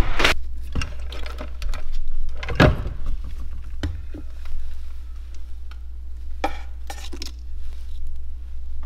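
Scattered clicks and knocks at irregular intervals, the loudest about a third of the way in, over a steady low hum.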